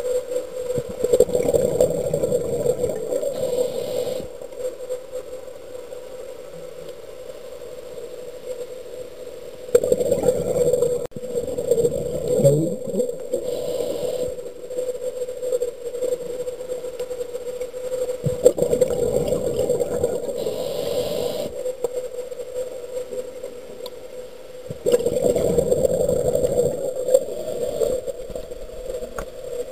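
Muffled underwater sound through a camera housing: a steady hum under four swells of noise, each a few seconds long, coming every seven to nine seconds. The rhythm fits the camera diver breathing on a closed-circuit rebreather.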